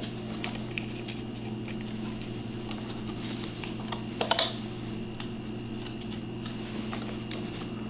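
Scattered faint clicks and rustles of a half-mask respirator's plastic head cradle and elastic straps being pulled over the head and settled, with a short cluster of clicks about four seconds in. A steady low hum runs underneath.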